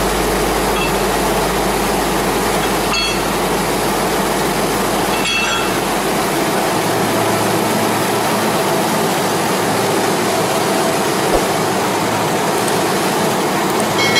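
Sri Lanka Railways M4-class diesel locomotive idling with a steady rumble. Two short metallic clinks come about three and five seconds in, from the coupler gear being worked.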